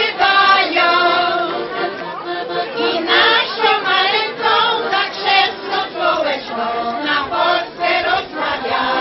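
Women's folk choir singing a song together, held notes wavering slightly in pitch.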